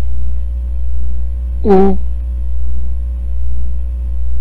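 Steady low electrical hum, with a voice saying a single short vowel sound once, about two seconds in.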